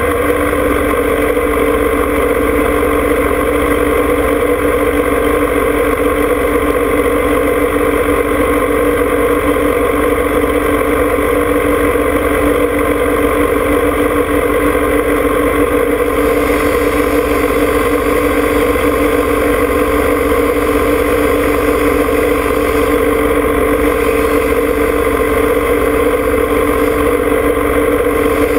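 John Deere 2305 compact tractor's three-cylinder diesel engine running steadily at a constant speed, loud and close.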